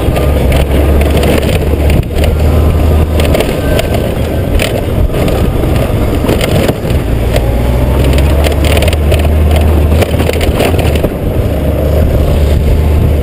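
Honda GoldWing GL1500's flat-six engine running as the motorcycle rolls down a loose gravel track, with tyres crunching and clicking over stones. Wind buffets the helmet-mounted microphone throughout.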